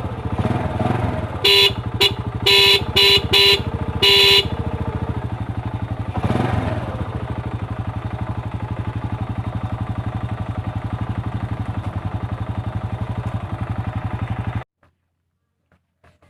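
Honda EX5 Dream 100cc four-stroke single-cylinder engine running, fitted with a new racing spark plug, and revved briefly twice. Its horn is tested in six short beeps a couple of seconds in after being repaired. Near the end the engine is switched off and cuts out suddenly.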